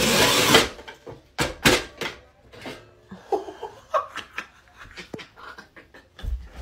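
Manual tile cutter's scoring wheel pushed across a tile: a loud rasping scrape for about half a second at the start. A few sharp clicks follow, then a man's laughter.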